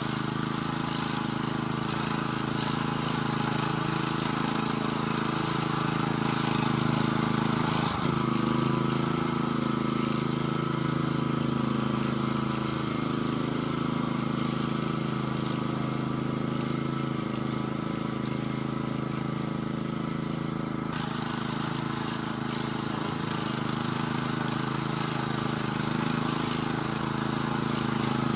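Engine of a VARI single-axle walking tractor running steadily as it pulls a tine cultivator through the garden soil. The higher part of its sound fades from about eight seconds in and comes back at about twenty-one seconds.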